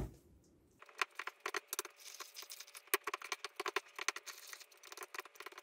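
A fork stirring egg and vanilla into creamed butter and sugar in a bowl, with quick, irregular clicks and scrapes of the fork against the bowl starting about a second in.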